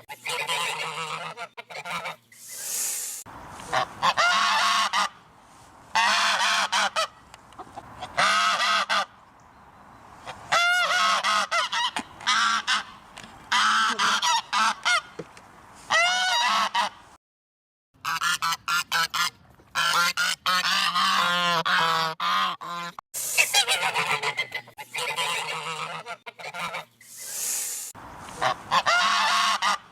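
Geese honking over and over, loud harsh calls coming in bouts with short pauses between them.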